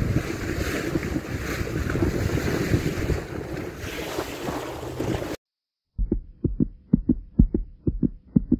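Wind on the microphone and the rush of sea water from a boat under way. The noise cuts off suddenly about five seconds in. After a moment of silence, a heartbeat-like pulsing thump starts, a few beats a second over a faint steady hum.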